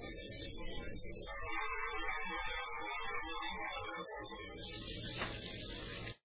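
A buzzing, whirring sound with a lot of hiss over it. It grows louder about a second in, eases off after about four seconds, and cuts off abruptly near the end.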